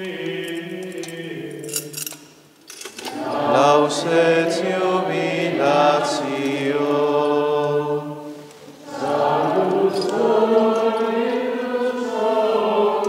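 Franciscan friars' men's voices singing Latin plainchant in unison, in long held notes, with two short pauses between phrases, about two and a half and eight and a half seconds in. A few light clicks sound just before the first pause.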